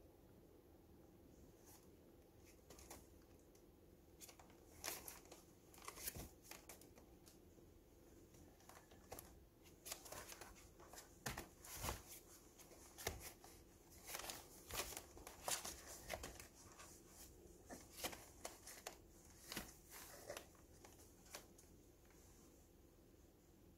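Puppies scrambling and wrestling on newspaper in a plastic crate: soft, scattered crinkling and rustling of the paper and scratching of claws. It starts a few seconds in, is busiest in the middle, and dies away near the end.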